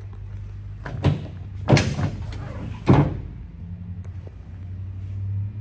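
Pickup truck tailgate being unlatched and lowered: three loud clunks within about two seconds, over a steady low hum.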